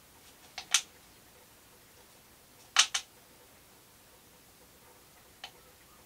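Light, sharp clicks of a spatula against a plastic beaker and its container as sodium hydroxide is spooned onto a weighing balance: a double click about half a second in, a louder double click near three seconds, and a faint single click near the end.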